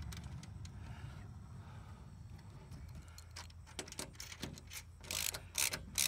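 Low steady rumble, then a run of sharp clicks and rattles from handling hardware, ending in a few loud rustling bursts.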